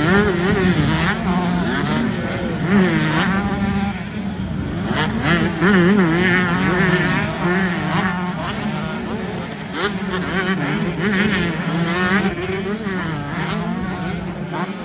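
Several 125cc two-stroke motocross bikes racing through a dirt turn and jump, their engines overlapping and rising and falling in pitch again and again as the riders work the throttle.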